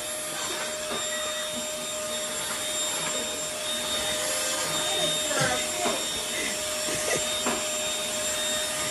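Corded electric stick vacuum running steadily with a constant motor whine as it is pushed over a wooden floor.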